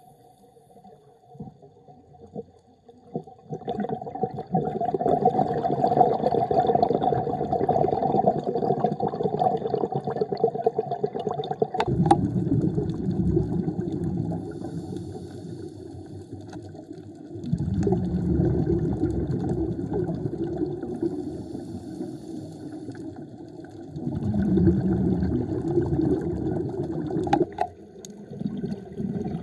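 Underwater sound of a scuba diver's breathing: long stretches of exhaled bubbles rushing and gurgling, broken by short quieter gaps at each inhale. The first few seconds are quiet.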